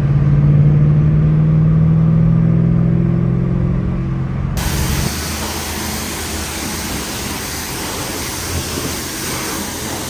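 Car engine running steadily with an even low hum. About five seconds in the sound cuts to a steadier hiss-like noise with the engine lower in the mix.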